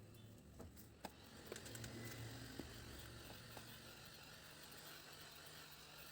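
Faint scattered clicks and taps from handling a tablet during disassembly, over a low steady hiss. The sharpest click comes about a second in.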